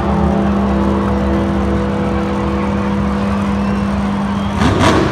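Monster Jam truck's supercharged V8 engine held at a steady note for several seconds, then revved hard near the end with a rising sweep.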